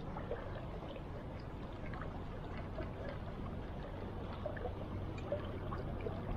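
Steady rush of a shallow river current, with small scattered trickles and splashes.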